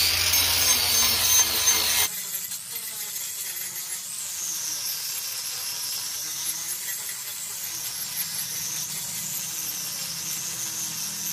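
Small angle grinder with a carbide shaping disc grinding down a wooden surface, its high whine dipping and rising in pitch as the disc bites into the wood. About two seconds in the sound drops abruptly in level and turns thinner.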